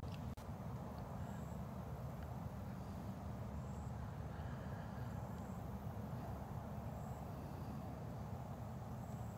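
Steady low outdoor rumble with a flickering texture, with faint short high-pitched chirps every second or two and a single click just after the start.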